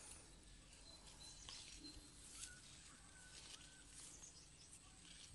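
Near silence: faint outdoor ambience, with a few soft rustles and faint thin high calls in the background.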